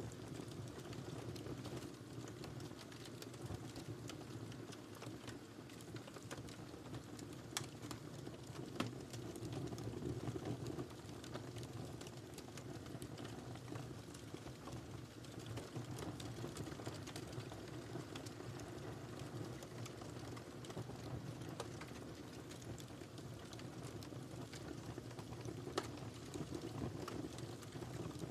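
Wood fire burning in a fireplace: a steady low rumble of flames with irregular crackles and pops, a few sharper pops standing out.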